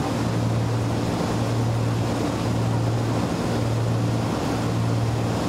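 Cessna T303 Crusader's twin turbocharged Continental six-cylinder engines and propellers droning steadily in cruise climb, heard inside the cockpit over the rush of airflow. The low hum swells and dips in a slow throb about once a second.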